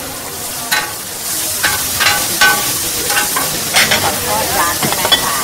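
A metal utensil clanking repeatedly against a hot pan while food sizzles; the sizzle grows louder about a second in, and some clanks ring briefly.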